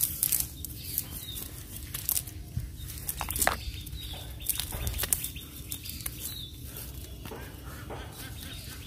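Irregular clicks, taps and rustles, with a few short high bird chirps over a low steady background rumble.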